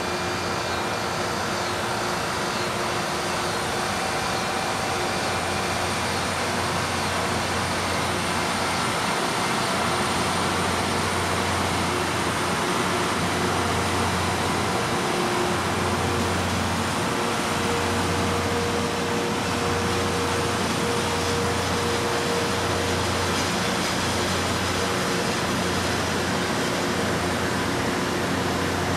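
LORAM rail grinder train's diesel engines running steadily, a constant mechanical hum and rush. From about halfway through a low, pulsing throb comes in.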